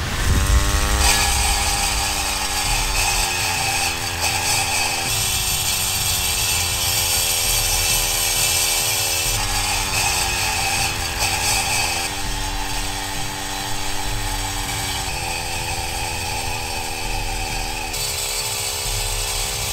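Two-stroke chainsaw engine running at high revs and driving twin diamond blades that grind a groove into concrete. The engine pitch sags and recovers as the blades bite, and the sound jumps abruptly several times.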